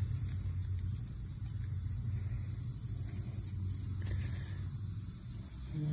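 Steady high-pitched insect chorus over a low, steady rumble, with a few faint ticks in the middle.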